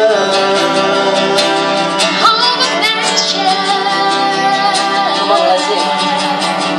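Worship song sung live: a voice holds long notes over strummed acoustic guitar.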